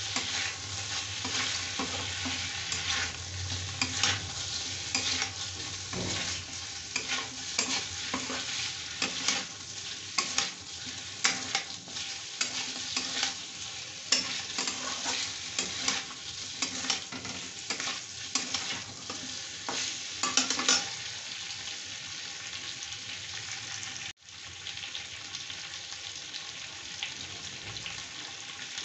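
Chicken pieces sizzling in hot oil in a kadai while a flat spatula stirs and scrapes them against the pan with many quick strokes. About three quarters of the way through, the stirring stops and a steady sizzle carries on.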